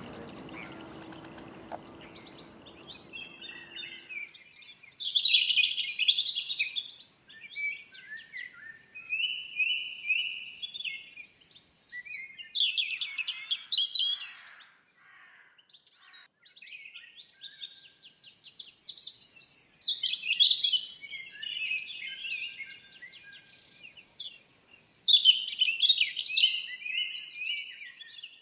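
Songbirds singing in bursts of fast, high chirping phrases with short pauses between them, after a low background rumble that fades out in the first few seconds.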